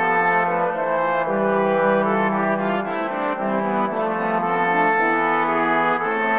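Software-rendered Renaissance consort of cornetto, viol and two trombones playing a 16th-century French chanson: several held parts moving together in slow polyphony, with the low trombone line prominent.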